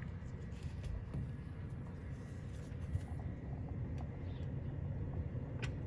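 Steady low outdoor background rumble with a few faint, short clicks.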